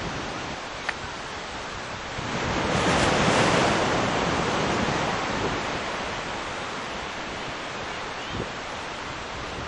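Ocean surf and wind on the microphone, a steady rush that swells for a couple of seconds about three seconds in.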